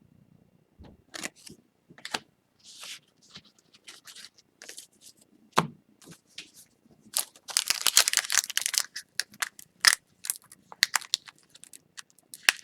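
Foil wrapper of an Upper Deck hockey card pack being crinkled and torn open: scattered crackles, with a denser stretch of tearing a little past the middle.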